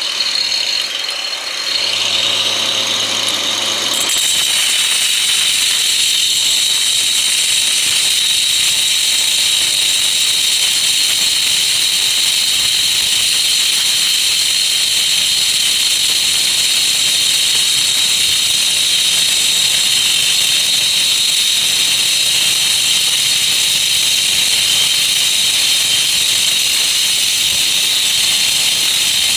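Cheap electric grinder running continuously with a steady high-pitched whine and hiss, growing fuller and louder about four seconds in.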